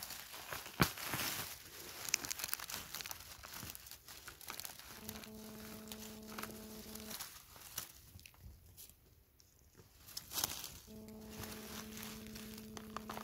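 Dry pine needles and leaves crackling and rustling, with a few sharp snaps, as a hand clears the forest-floor litter around the base of porcini mushrooms. A steady low hum with overtones sounds twice, for about two seconds a little after the middle and again near the end.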